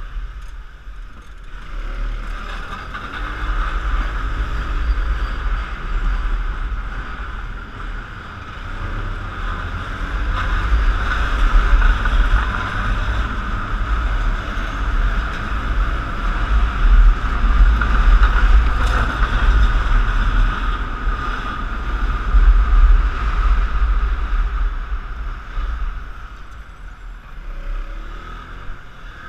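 Piaggio X9 scooter riding through slow city traffic, heard from a camera mounted on the scooter: engine running with heavy wind rumble on the microphone, growing louder as it picks up speed and easing off near the end.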